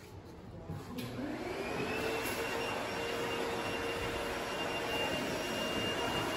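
A machine spinning up about a second in: a whine rises in pitch and then holds steady over a steady rushing noise.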